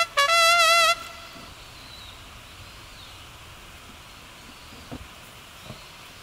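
A short comic trumpet-like sound effect: a few quick notes, then one held, wavering note lasting under a second. It gives way to a steady faint hiss with a couple of soft knocks near the end.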